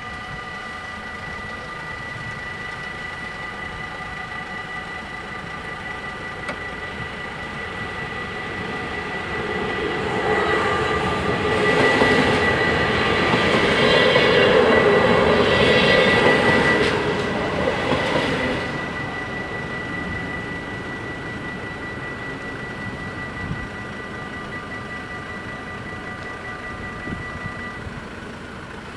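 Level-crossing bells ring steadily at a closed Dutch AHOB crossing while an NS SGMm Sprinter electric train passes. The train's rumble and rattle swell from about nine seconds in, are loudest for several seconds, and fade by about nineteen seconds. The bells stop shortly before the end, as the crossing reopens.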